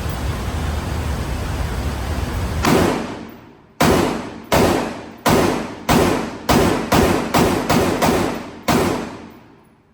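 Eleven shots from an AR-15 pistol, fired one at a time at a steady pace that quickens slightly toward the end, each ringing out with a long tail. The shots begin about a quarter of the way in, after a steady rushing noise.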